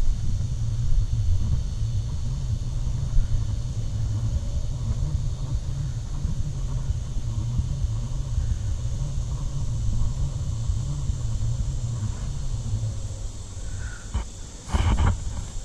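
Wind buffeting the camera's microphone: a steady low rumble, with a faint steady high hiss behind it and a few sharp knocks near the end.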